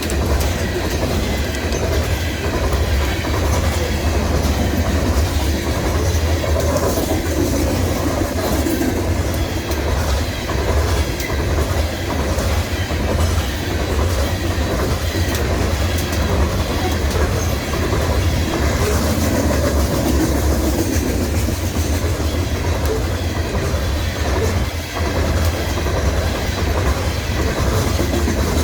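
BNSF freight train rolling past: a steady deep rumble with a continuous clickety-clack of wheels over the rail joints.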